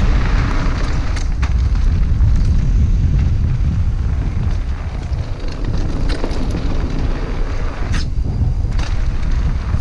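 Wind buffeting the microphone on a fast mountain-bike descent of a loose gravel trail, with tyres crunching over gravel and the bike rattling. Sharp clicks and knocks from stones and the bike come now and then, the loudest about eight seconds in.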